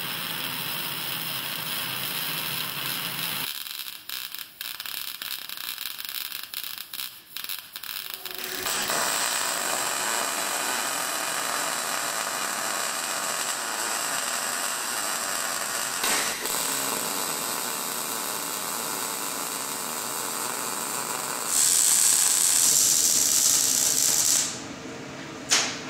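MAG welding arc crackling and hissing steadily. About four seconds in it turns choppy and stuttering for about five seconds, then runs steadily again and is louder for a few seconds near the end.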